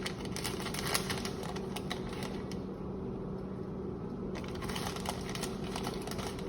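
Irregular light clicks and crackles, typical of shredded cheese and its bag being handled and tipped into a pot, over a steady low hum. The clicking is densest at the start and again from about four seconds in.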